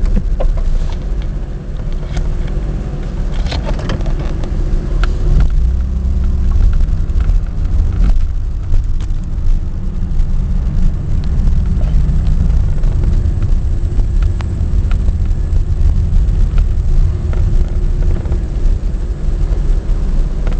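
1994 Chevy Lumina Euro's 3.1 V6 engine running unevenly, a low rumble that rises and falls. The rough, surging idle has no check-engine light, and the owner can't find its cause.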